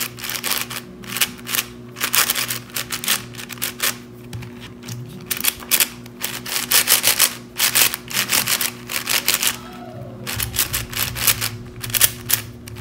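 Plastic YuXin 6x6 speed cube turned fast by hand: a dense, uneven stream of clicking and clacking as its layers snap round on its first turns out of the box.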